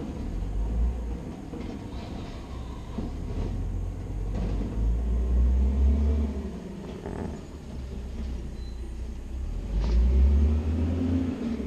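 Garbage truck engine running with a low rumble, revving up and easing off twice, about halfway through and again near the end.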